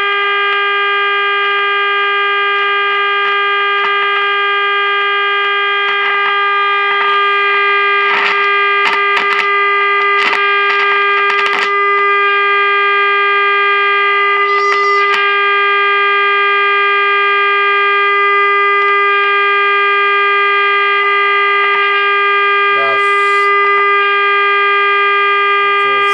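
A steady, loud test tone with many overtones from the 1947 Admiral 7T10M radio's speaker: the signal generator's modulated signal being received while the set is aligned. Bursts of crackle come through several seconds in.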